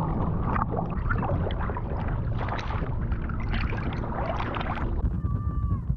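Seawater splashing and sloshing over a waterproof action camera at the waterline as a swimmer strokes through choppy waves, with many quick splashes over a steady low rumble. The splashing thins out about five seconds in.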